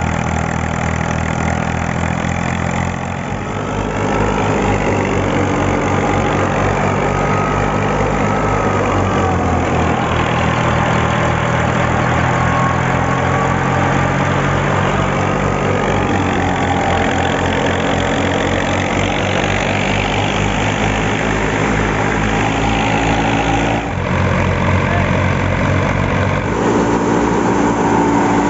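Fiat 480 tractor's diesel engine running steadily at working speed, driving a wheat thresher through its PTO shaft, with black exhaust smoke showing it is under heavy load. The sound changes abruptly twice near the end.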